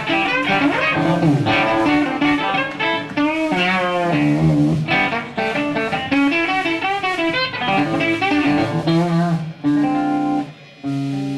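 Instrumental surf rock band playing live: fast electric guitar lead lines over bass and drums. Near the end the band stops for a moment, then comes back in on a long held chord.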